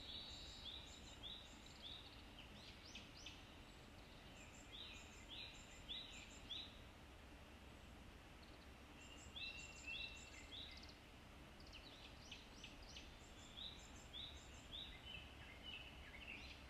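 Faint birdsong: quick runs of short, high chirping notes, repeated in bouts every few seconds over a quiet background.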